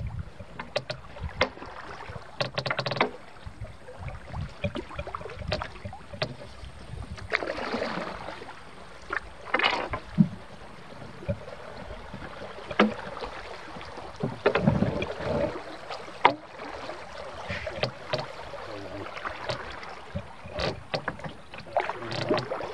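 Paddling a canoe: paddle strokes swishing and splashing in the water at an irregular pace, with scattered sharp knocks and clicks on the boat.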